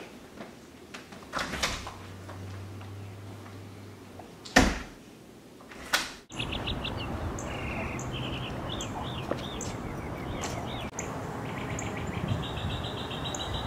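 Footsteps and small knocks, then a loud bang about four and a half seconds in, likely a house's front door. After a sudden change of scene, small birds chirp in repeated high trills over outdoor background noise.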